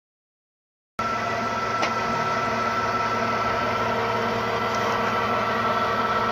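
Core drilling rig running: a steady machine noise with a high steady whine, starting abruptly about a second in.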